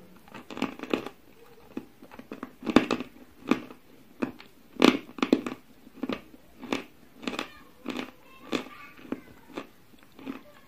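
Close-mouthed chewing of a piece of crunchy white chalk: a steady run of crisp crunches, about one and a half a second, loudest in the first half and softening as it is ground down.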